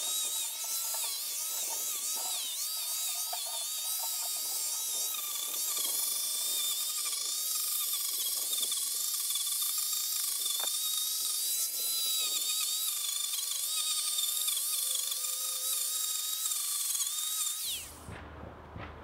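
Angle grinder running with its disc cutting into a wooden log: a steady high whine over irregular scratchy grinding of wood. It cuts off suddenly near the end.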